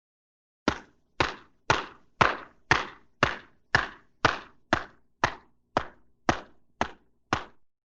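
A sound effect of fourteen evenly spaced knocks, about two a second, each a sharp thunk that dies away quickly.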